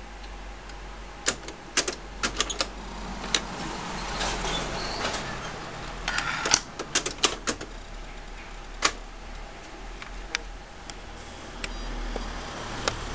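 A series of sharp mechanical clicks and clunks from a Sharp GF-888 double cassette boombox as its deck is operated and the cassette is ejected, the door springing open. The clicks bunch together about six to seven seconds in.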